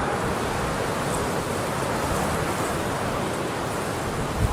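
Steady rushing wind noise, a strong wind blowing across the microphone.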